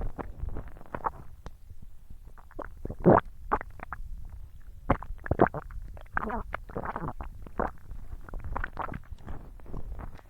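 Close-miked eating: irregular chewing and mouth smacks from one person eating fried chicken and spaghetti, with a longer mouth sound about six seconds in.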